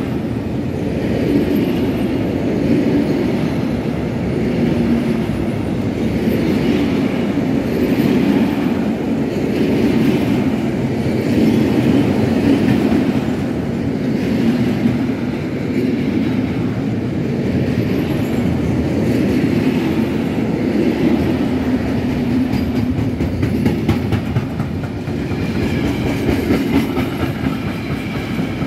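Freight wagons of a long mixed freight train rolling past: a steady rumble of steel wheels on rail with clickety-clack from the passing wheelsets, and a faint high wheel squeal near the end.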